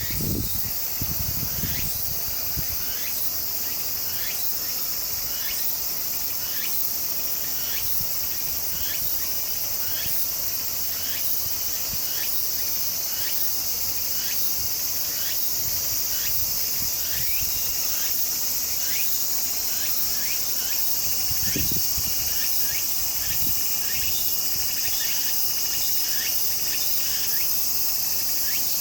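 Insects chirring in a steady high-pitched chorus, with a short falling chirp repeating about once a second.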